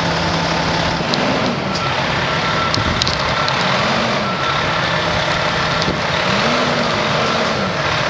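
A fire engine's engine running, its pitch rising and falling in slow swells as it works through deep snow, with short high beeps coming on and off.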